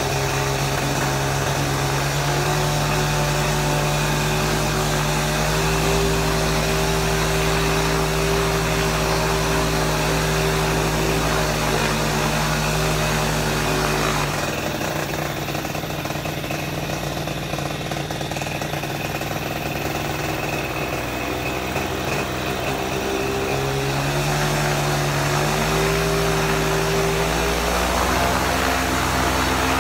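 Paramotor's two-stroke engine and propeller running during its warm-up. About halfway through the engine's note shifts and runs a little quieter and less even for about ten seconds, then steadies and comes back up near the end.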